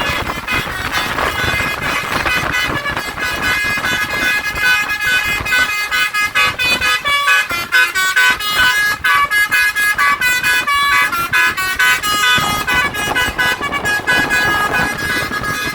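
Tour bus's telolet basuri horn playing a fast tune of short horn notes that step up and down in pitch. A noisy rumble sits underneath; it drops back in the middle and returns about three-quarters of the way through.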